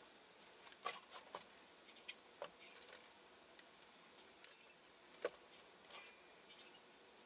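Faint, scattered clicks and light knocks from handling a circuit board and loose component leads on a wooden workbench, as the board is lifted, turned and set back down. The two sharpest clicks come about a second in and about six seconds in.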